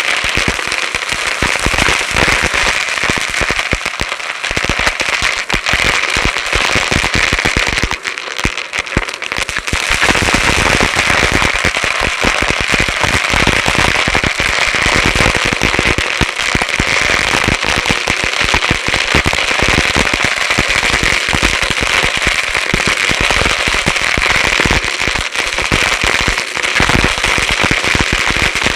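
Dyson Light Ball upright vacuum running steadily while sucking up crunchy debris, which crackles and rattles through it in a dense stream of pops. The crackling thins out for a couple of seconds about eight seconds in, then returns at full strength.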